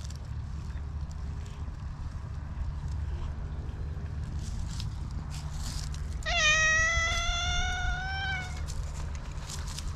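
Black cat meowing once: a single drawn-out meow of about two seconds, coming about six seconds in, that rises slowly in pitch and drops off at the end.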